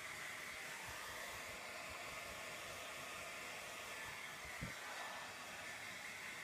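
Hand-held hair dryer blowing steadily while drying a toddler's hair, with a faint steady whine in the rush of air. A light knock about four and a half seconds in.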